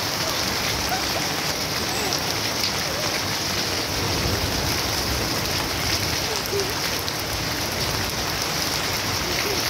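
Steady rain falling on garden plants and puddled ground, an even wash of sound without pause.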